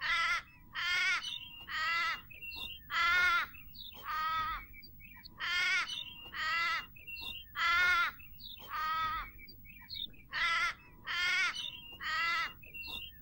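A bird giving short, harsh calls, about fifteen in all in three series of roughly five, over faint low background noise.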